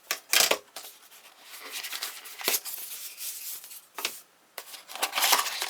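Cardboard and paper packaging being handled and rummaged through: rustling and scraping with a few sharp knocks, loudest just after the start and again near the end.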